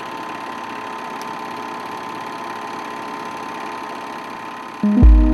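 Film projector running steadily, a constant mechanical whir with a steady hum. Near the end a deep boom hits and a held synthesizer chord comes in.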